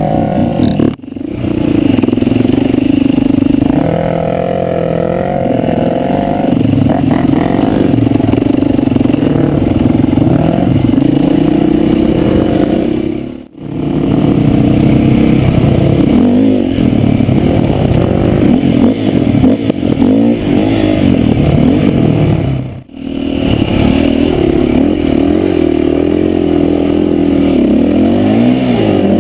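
Four-stroke single-cylinder dirt bike engine running and revving up and down on a trail ride, its pitch rising and falling with the throttle. The sound cuts out briefly three times: about a second in, near the middle, and about two-thirds of the way through.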